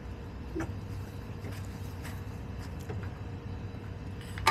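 Backyard hens foraging: scattered soft pecks and scratches in the dirt and litter, with a brief low cluck about half a second in, over a steady low rumble. A sharper, louder sound comes right at the end.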